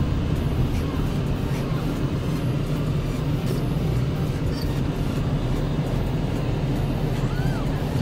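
Steady low road and engine rumble of a car, heard from inside the moving vehicle.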